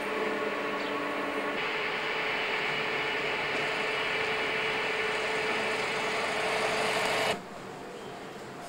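A steady mechanical whirring hum with a few held tones. It turns hissier about a second and a half in and cuts off abruptly near the end.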